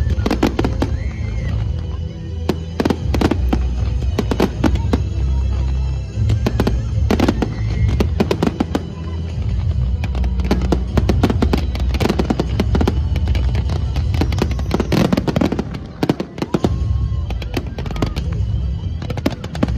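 Fireworks display: a dense, continuous string of sharp cracks and bangs from bursting shells over a steady low rumble, easing briefly about sixteen seconds in.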